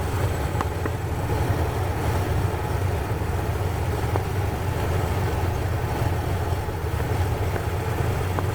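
1993 Ford Ranger engine idling with a steady low rumble. The idle is rough from a vacuum leak at a broken intake manifold gasket.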